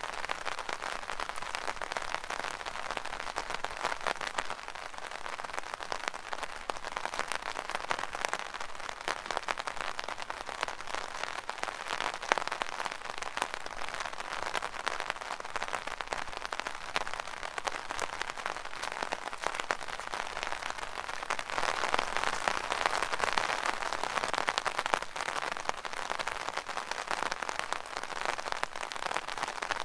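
Steady rain drumming on an umbrella canopy: a dense patter of fine drop hits, swelling slightly about two-thirds of the way through.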